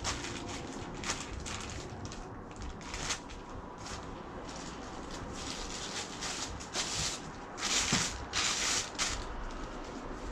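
Irregular hand-worked rubbing strokes on a surface, short swishing sounds coming every second or so, with a quicker, louder run of strokes about eight seconds in.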